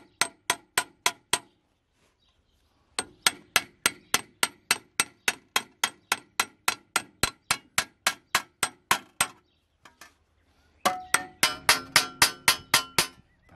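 Hammer peening a scythe blade's edge on a peening anvil: quick, even metal taps about five a second, each ringing briefly, in three runs with short pauses. These are the light finishing blows that even out the thinned, drawn-out edge, where it has started to buckle slightly.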